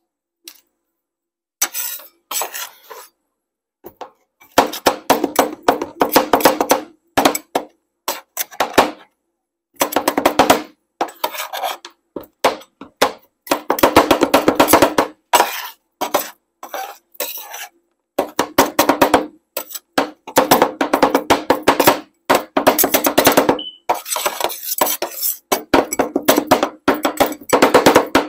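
Two metal spatula scrapers chopping peanut butter cups on a stainless steel rolled-ice-cream cold plate: rapid runs of metal-on-metal tapping, many strikes a second, in bursts with short pauses, the steel plate ringing under the strokes. It begins about two seconds in.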